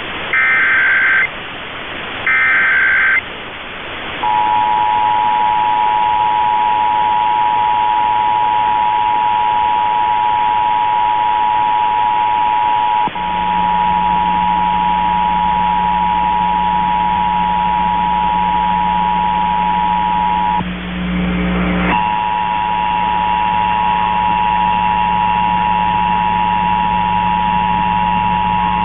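Emergency Alert System test tones. It opens with the last two short bursts of the SAME digital header data, then the EAS two-tone attention signal, a steady two-note alarm tone. The attention tone breaks off for about a second around two-thirds through and resumes, with a low hum underneath it from about the middle on.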